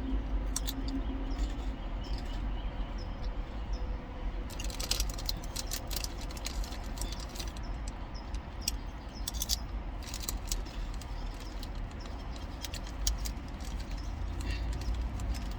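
Close-up eating sounds: scattered crisp clicks and crackles from eating a sandwich, in small clusters, over a steady low rumble inside a car.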